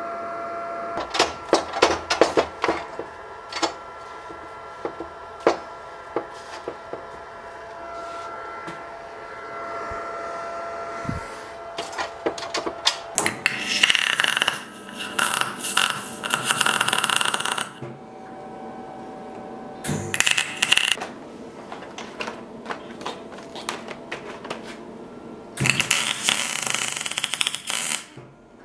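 A series of sharp metallic clicks and clinks, then MIG welding: the arc crackles and spits in a burst of about four seconds near the middle, a short burst about 20 seconds in, and another near the end.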